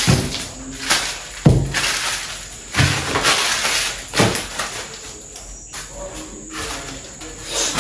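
Plastic grocery packaging rustling and items knocked down onto a kitchen countertop, with sharp knocks at the start and about one and a half, three and four seconds in.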